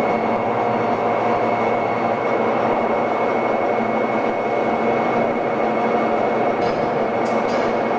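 Steady mechanical drone of a railway train having its bogies changed for a different track gauge, with a constant high whine over a low rumble, and a few faint clicks near the end.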